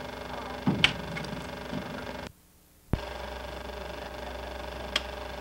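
Steady low hum with a few sharp clicks. About two seconds in, the sound drops out to near silence for about half a second where the home-video recording cuts between shots, and it comes back with a click.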